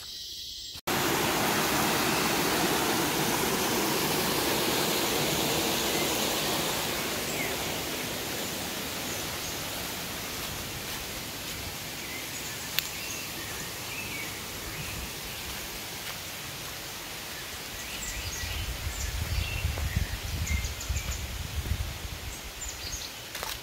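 Forest ambience: a steady rushing hiss, like running water or wind through foliage, that starts abruptly about a second in and slowly fades, with short bird chirps over it. Low thumping rumbles come in over the last few seconds.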